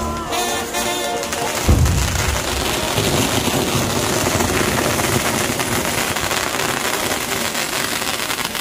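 Brass band music for the first moments, then a loud bang about two seconds in sets off a dense, steady crackling and hissing of fireworks from a burning castillo firework tower.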